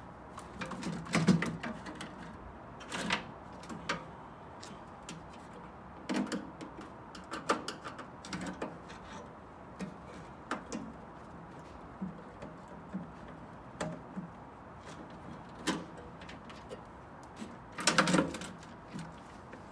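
Irregular metallic clicks, clanks and rattles of hand tools working on a microwave oven's sheet-metal casing and internal parts while its screws are taken out, with the loudest clatter near the end.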